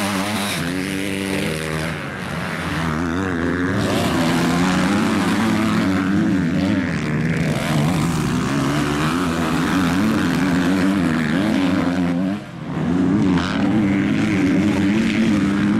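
Motocross bike engines revving hard, the pitch rising and falling with the throttle and gear changes. The sound drops out briefly about twelve and a half seconds in, then comes back just as loud.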